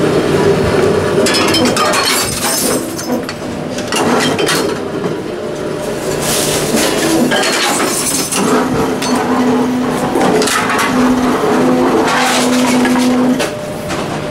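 Glass bottles clinking, clattering and breaking inside Tomra reverse vending machines, in irregular bursts over a steady machine hum. A low droning tone comes and goes through the second half.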